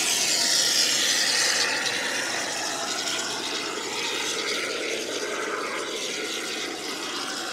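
Can of expanding spray foam hissing steadily as foam is dispensed through its nozzle, loudest in the first couple of seconds.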